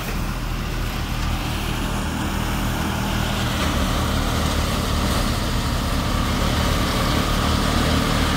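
An Eicher tractor's diesel engine running steadily, driving an Amar four-fan paddy thresher whose drum and fans add a broad whirring hiss as paddy is fed through.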